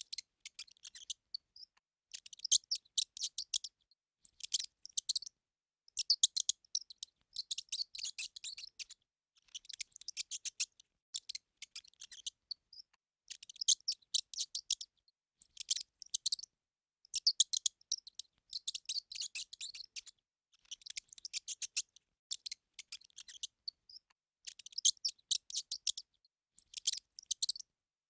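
Hamster squeaking: rapid trains of short, high-pitched squeaks in bursts of one to two seconds, with brief pauses between them.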